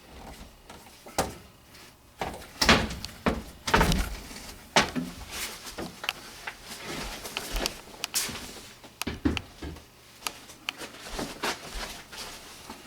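Irregular knocks, clunks and scrapes of hands-on work on an air handler's sheet-metal cabinet, with a few sharp bangs among lighter taps.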